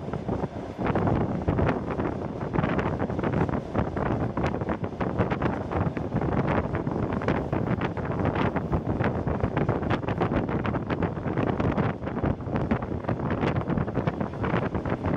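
Ride inside a moving DR1A diesel multiple unit by a window: a steady rush of wind over the train's running noise, dotted with frequent sharp clicks and rattles.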